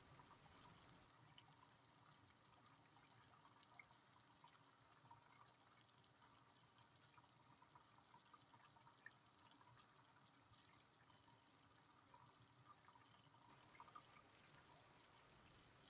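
Faint, steady rain with scattered light drips ticking, a few slightly louder drops among them; no thunder.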